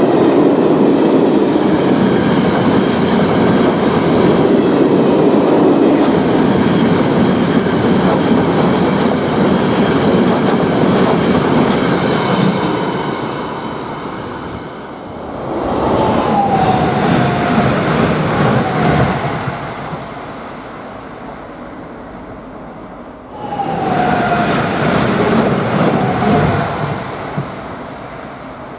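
Loaded freight hopper wagons rolling past with a steady clatter of wheels on rail joints, fading away after about 12 seconds. About 15 seconds in a second train passes quickly with a falling whine, and about 23 seconds in an electric passenger train rushes by in the same way, its whine dropping in pitch as it goes.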